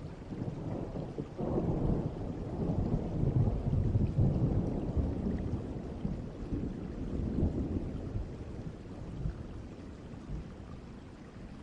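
A distant thunderclap rolling and rumbling low, swelling about a second and a half in and slowly dying away over steady rain.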